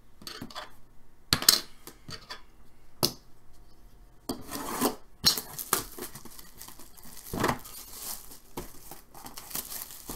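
Cardboard puck box being handled and opened by hand. A few sharp knocks and taps come first, then from about four seconds in the cardboard scrapes and rustles, along with a plastic bag.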